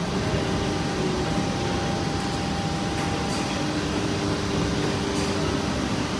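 Steady drone of carton-factory machinery running, with faint held tones and a few light clicks.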